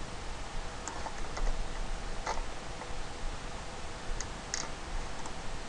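Scattered light clicks of a computer mouse and keyboard, irregularly spaced, the clearest about two and four and a half seconds in, over a faint steady computer hum.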